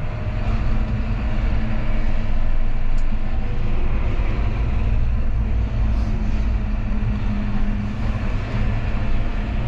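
John Deere 6215R tractor's six-cylinder diesel engine running steadily while the tractor is driven along a road, heard from inside the cab as a constant low hum.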